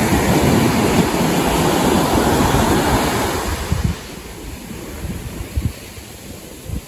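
Ocean surf breaking and washing up a sandy beach, with wind buffeting the microphone. The sound drops sharply about four seconds in, leaving quieter wash with a few low gusty thumps.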